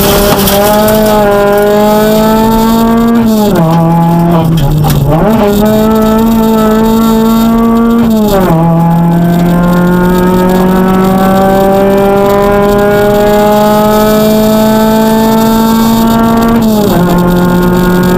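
Citroën DS3 R1 rally car's engine heard from inside the cabin, pulling hard through the gears. Its pitch climbs steadily and dips at gear changes about three, five and eight seconds in, then makes one long climb before another shift near the end.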